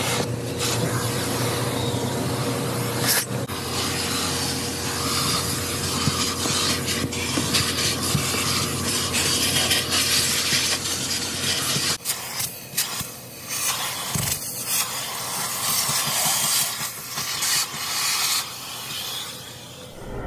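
Self-serve car wash vacuum hose sucking air as its nozzle is worked over the car's carpet and seats: a loud, steady rushing noise. About twelve seconds in, the low hum underneath drops away and the rushing comes and goes in uneven surges.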